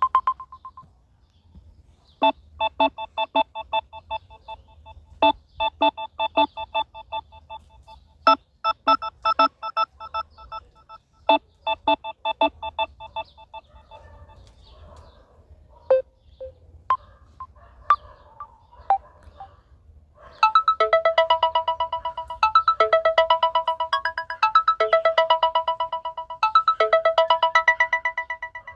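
Mobile phone ringtones played one after another: a short beeping electronic melody, then a few scattered tones, then from about twenty seconds in a fast trilling ring in bursts of about two seconds.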